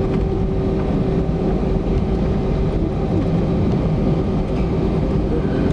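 Cabin noise of an Airbus A320-232 taxiing, its IAE V2500 engines at idle thrust: a steady rumble with a steady hum over it.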